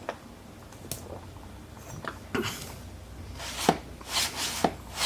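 Hand work on wood pieces: a few light clicks and knocks, then, from about three seconds in, rhythmic scraping strokes on wood, roughly two a second, each ending in a sharp tap.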